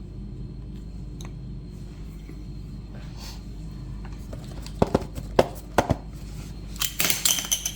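A few sharp clicks and taps of handling, then, from about seven seconds in, crinkling and tearing of a blind box's plastic packaging, over a steady low hum.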